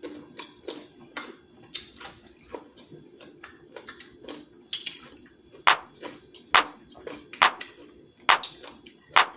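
Close eating sounds from a seafood boil: wet mouth smacks and clicks of chewing and sucking at fingers and shells, irregular and close together. From about five and a half seconds in, louder sharp clicks come about once a second.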